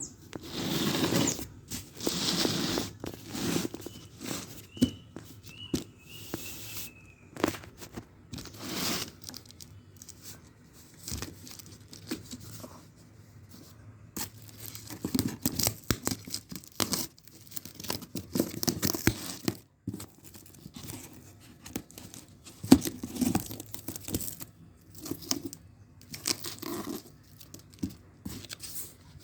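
Packaging being opened and handled: irregular bursts of tearing and crinkling with short handling clicks and knocks, loudest in a few spells.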